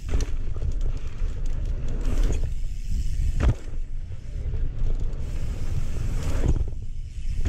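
Wind buffeting the microphone of a mountain bike camera, with tyre noise over hard dirt. There is a sharp knock about three and a half seconds in and a smaller one near the end, as the bike lands off dirt jumps.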